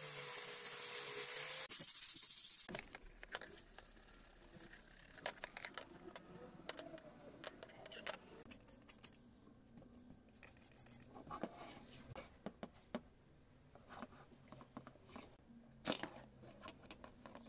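Angle grinder with a cutting disc cutting metal at the end of a bicycle suspension fork leg, a steady hiss over the motor's hum that cuts off abruptly about two and a half seconds in. After it, scattered light clicks and knocks of the metal fork being handled.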